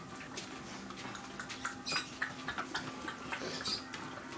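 Dalmatian dogs and puppies moving about, with scattered light clicks and scuffles.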